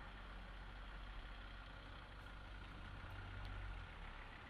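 A faint idling engine: a steady low rumble with a thin steady tone above it. The deepest part of the rumble drops away near the end.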